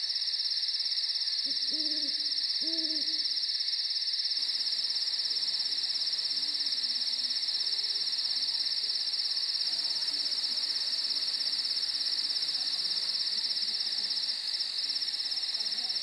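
Steady, high-pitched chorus of night insects trilling. Over it an owl gives two short hoots, about a second and a half in and again a second later.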